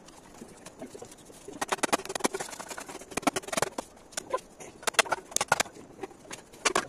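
Sharp knocks and taps of a blade striking green bamboo poles as they are cut and split, coming in several quick clusters.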